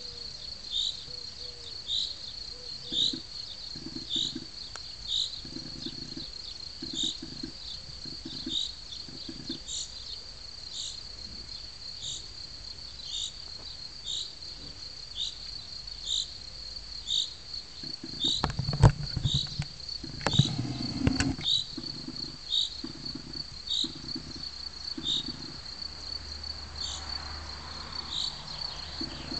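Crickets chirping steadily, short high chirps about once a second over a continuous high trill. Around two-thirds of the way in there is a brief cluster of loud knocks and rustling.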